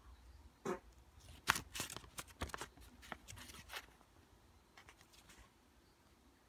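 Paper banknote crinkling and rustling as it is handled and flipped over in the fingers: a run of crisp crackles from about a second in to around four seconds, then a few fainter ones about five seconds in.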